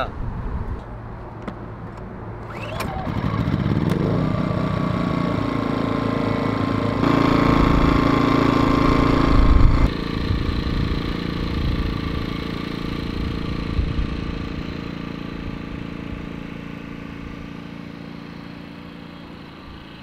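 Toro GW2500i inverter generator's small petrol engine being pull-started on choke with the recoil starter: a few pulls, then it catches about three seconds in and runs steadily. It gets louder about seven seconds in, drops back suddenly near ten seconds, then keeps running while slowly growing fainter.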